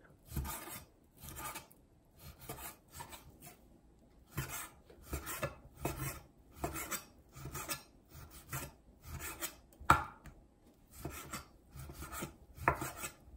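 Chef's knife slicing raw beef on an end-grain wooden cutting board: a steady run of short sawing strokes, about one and a half a second, each scraping through the meat onto the board, with a sharper knock about ten seconds in.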